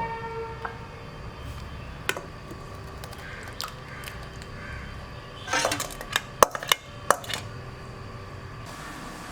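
A metal utensil clinking and knocking against metal cookware: a few single clinks, then a quick run of sharper clinks between about five and a half and seven and a half seconds in, over a low steady hum.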